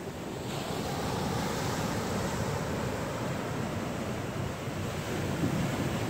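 Ocean surf: waves breaking and washing toward the beach in a steady rush, with the hiss swelling about half a second in.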